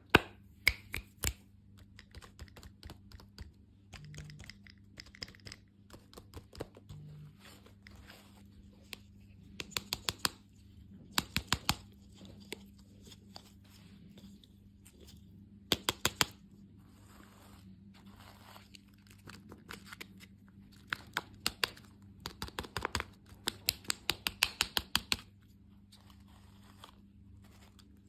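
Close-miked crisp crunching and crackling from candy and desserts being bitten or handled, in short bursts of rapid clicks with pauses between, over a faint steady low hum.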